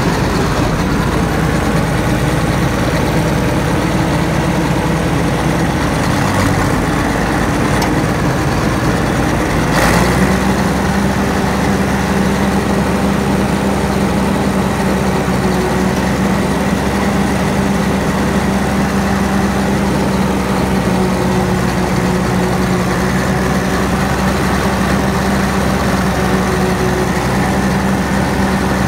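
Cat D6 dozer's Caterpillar 3306 six-cylinder diesel engine running steadily. About ten seconds in there is a short click and the engine's tone changes, then it holds steady again.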